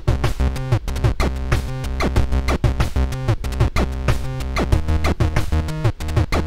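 Chiptune-style electronic music with synthesizer tones and a fast electronic drum beat.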